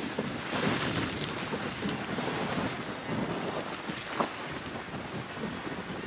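Steady rushing noise of wind buffeting the microphone, with a single short tap about four seconds in.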